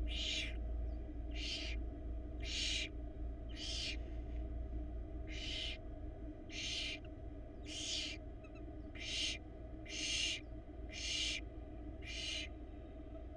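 Barn owl nestlings giving harsh, hissing begging calls ("snoring"), each about half a second long, repeated about once a second.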